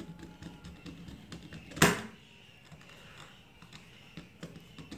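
Small clicks and scrapes of a screwdriver tightening a terminal screw on a plastic switch board, with one sharp click about two seconds in.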